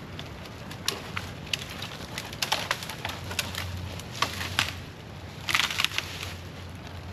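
Sharp cracks and knocks of wood, with twigs snapping as cut branches and brush are handled. There is a louder rustle of brush about five and a half seconds in.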